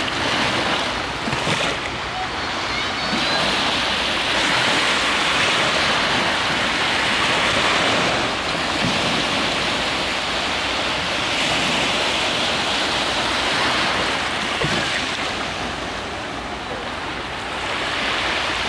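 Small waves breaking and washing up a sandy beach: a steady rush of surf that swells and fades every few seconds as each wave comes in.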